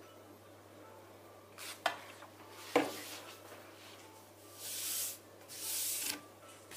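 Two light knocks, then hands rubbing a freshly glued sheet of paper flat against a white board, a few swishing strokes each lasting about half a second to a second.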